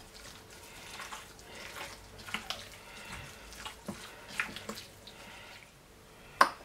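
Gloved hands kneading cubes of raw lamb leg in olive oil in a glass bowl: soft, irregular wet squelching. Near the end, one sharp clink of a metal spoon against glass.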